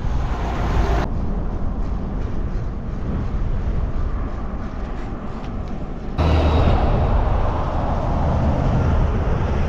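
Strong gale-force wind buffeting the microphone: a loud, steady low rumble that shifts abruptly about a second in and again about six seconds in.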